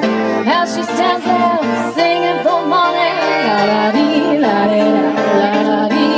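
A woman singing live into a handheld microphone, heard through the sound system over a DJ's house music track, with held and gliding notes.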